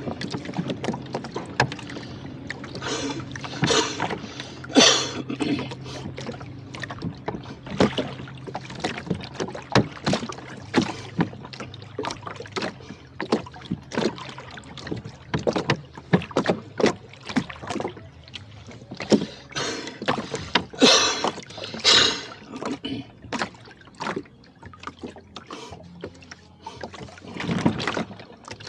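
Rowboat on open water: a steady run of irregular knocks and clicks, with louder swishes that come in pairs about a second apart, twice (a few seconds in and about two-thirds of the way through).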